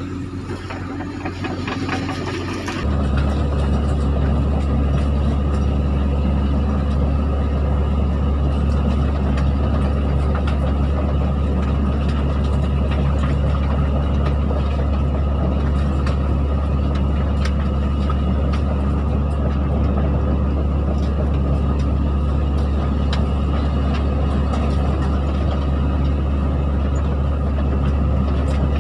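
Excavator's diesel engine running, its throttle opening up sharply about three seconds in to a steady, heavy drone as the machine works under load.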